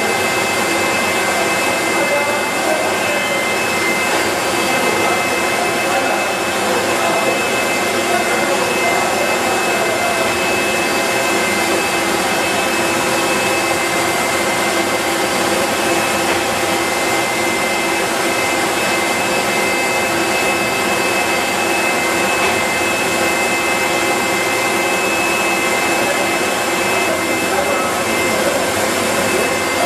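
Steady din of hard-candy production-line machinery running: a continuous noisy rush with a few constant high whines.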